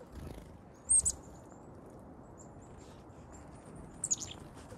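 Black-capped chickadees calling close by: a loud burst of high chirps about a second in, soft high peeps after it, and another chirp burst near the end.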